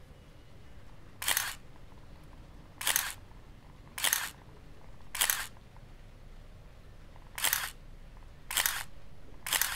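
Canon EOS 750QD 35mm SLR releasing its shutter seven times, one to two seconds apart. Each release is a short, sharp double clack of mirror and shutter.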